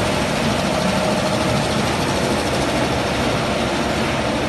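Machinery of a puffed-snack production line, the conveyor dryer and seasoning drum with their electric motors, running steadily with a constant hum and hiss.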